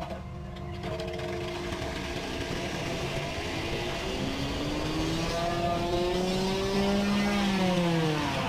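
An engine running under load, its pitch climbing slowly for a few seconds and then dropping near the end.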